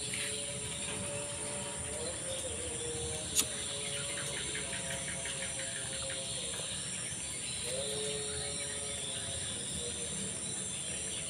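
Steady high chirring of night insects, with faint wavering tones underneath and one sharp click about three and a half seconds in.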